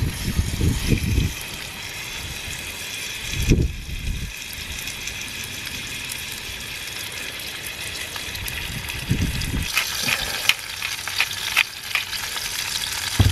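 Wallaby back steak sizzling steadily in hot olive oil in a frying pan on a portable gas stove, with a few short low bumps. Near the end a grinder crackles in quick clicks as the steak is seasoned.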